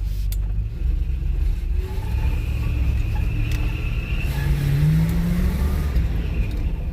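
1978 Corvette's small-block V8 running while driving. About four seconds in, the engine note rises as the car accelerates.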